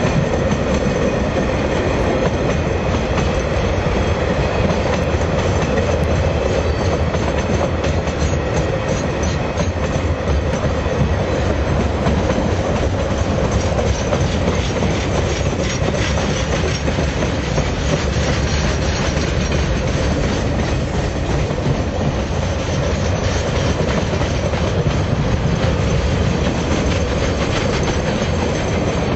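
Freight train's container wagons rolling past close by: loud, steady noise of steel wheels on the rails, with clickety-clack over the rail joints.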